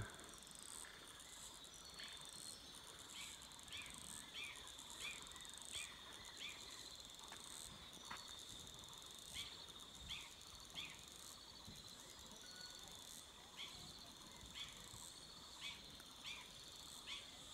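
Faint chorus of insects: a steady high-pitched buzz and cricket-like chirring, with short high chirps repeating every second or so.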